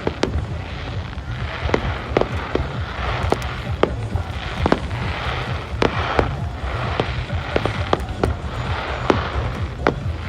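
Fireworks exploding in quick succession: sharp bangs about one or two a second, at irregular spacing, over a continuous hiss and low rumble.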